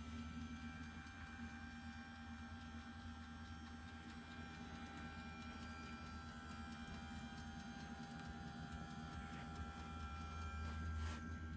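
Electric TV lift motor running steadily as the lift mast lowers into the cabinet: a steady hum with several held tones, and a single click near the end.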